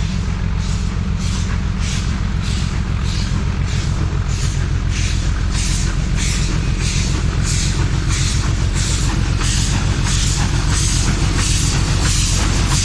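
W-class steam locomotive W945 working a train, its exhaust chuffing a bit under two beats a second and slowly quickening as it gathers speed, over a steady low rumble of the moving train.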